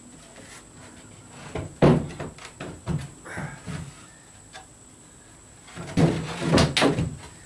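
Plywood bulkhead and stringer boards knocking and thumping as they are shifted and fitted into place in a boat hull. The knocks come in two clusters, one about two seconds in and another about six seconds in.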